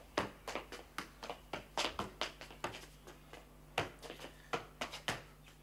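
A soccer ball being juggled on foot and knee: a run of short, dull touches, about two or three a second, unevenly spaced.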